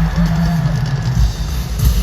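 Amplified live pop concert music with heavy, pulsing bass and drums.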